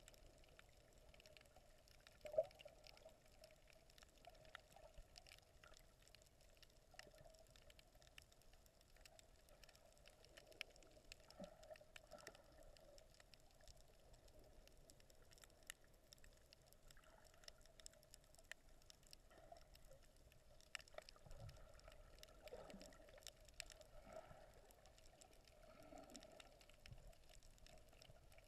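Faint, muffled underwater ambience heard by a submerged camera, with scattered small clicks and crackles. There is one sharper tap about two and a half seconds in.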